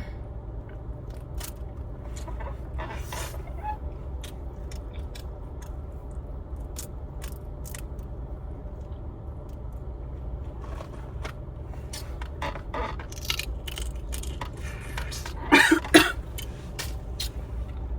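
Steady low hum with scattered small clicks and scraping, like objects being handled close to the microphone, and two louder short bursts about fifteen seconds in.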